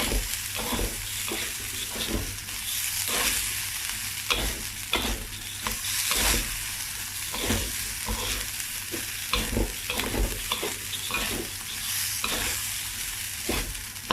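Rice frying in sauce in a pan, sizzling steadily, while a spatula stirs it, scraping and knocking against the pan in irregular strokes about once or twice a second.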